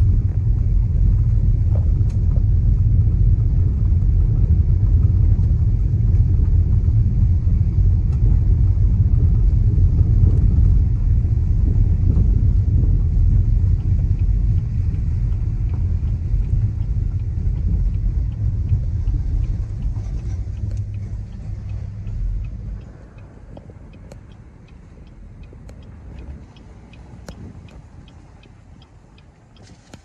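A car driving on a gravel dirt road, heard from inside the cabin: a deep, steady road rumble that cuts off suddenly about two-thirds of the way through, leaving a much quieter stretch with a few light ticks.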